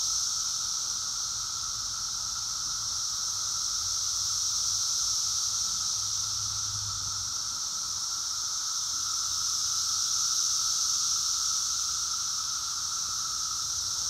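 Dense chorus of Brood X periodical cicadas: an ear-splitting, unbroken drone at two pitches, a high hiss over a lower whine, swelling and easing slowly.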